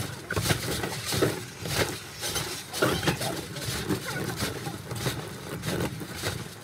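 Bare feet landing over and over on a wet trampoline mat, a short thud and splash about twice a second.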